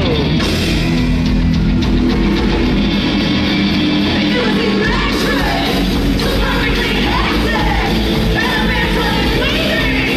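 Loud rock music with a singing voice that comes in about halfway through.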